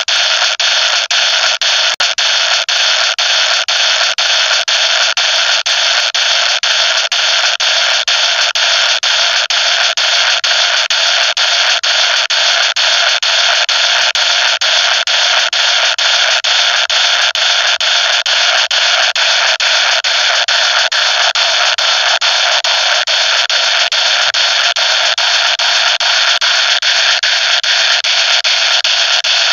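Loud, steady static-like hiss with a fast, even crackle of clicks running through it: audio sped up so far that the narration has blurred into noise.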